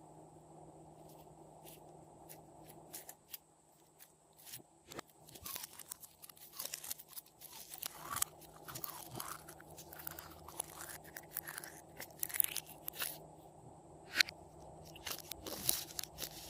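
Glossy slime being worked by hand, giving irregular sticky clicks and crackles, sparse at first and denser from about five seconds in.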